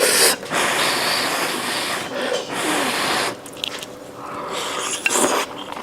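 A person loudly slurping spicy luosifen hotpot noodles and soup: one long slurp of about three seconds, then a shorter one near the end.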